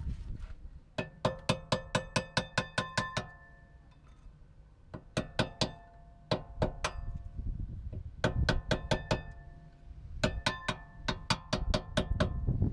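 Small hammer tapping a screwdriver against a Vauxhall Insignia rear brake pad to drive it out of the caliper bracket. The taps come in quick runs of ringing metallic strikes, about six a second, broken by short pauses, five runs in all.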